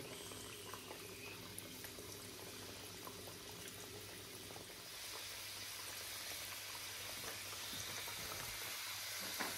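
Shingara (samosas) deep-frying in oil in a wok: a steady bubbling sizzle that grows louder about five seconds in as more pieces go into the oil, with a low steady hum underneath.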